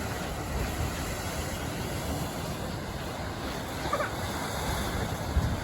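Steady wind rumbling on the microphone, with Lake Erie waves washing on the shore beneath it.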